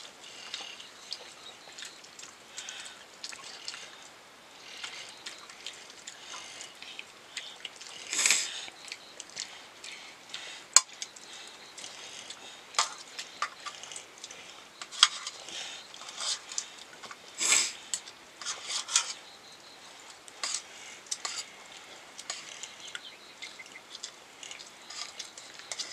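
Irregular clinks, taps and scrapes of cooking utensils and food being handled during cooking, with a sharp click about eleven seconds in.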